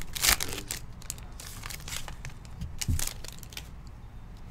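Plastic wrapper of a Panini Chronicles card pack crinkling as it is torn open, thickest in the first second. Fainter rustling follows as the cards come out, with a soft knock about three seconds in.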